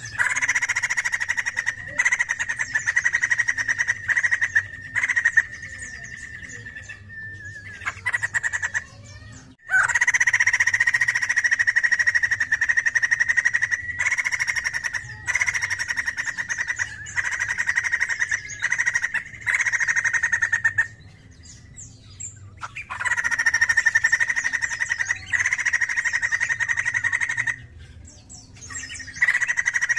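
White-crested laughingthrush calling in long bouts of rapid, chattering notes. Each bout lasts several seconds, with short pauses between.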